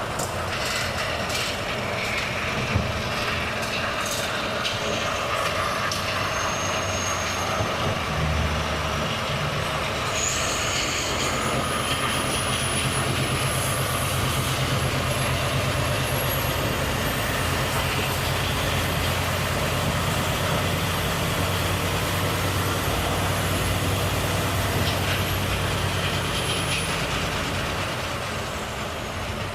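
Volvo FH truck's diesel engine running steadily under way, with a high whistle that rises about ten seconds in, holds, and falls away near the end as the engine note eases off.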